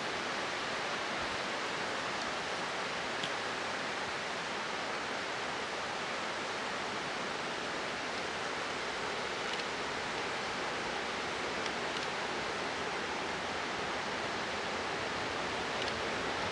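Steady rushing of a stream or waterfall, even and unbroken, with no locomotive engine clearly heard over it.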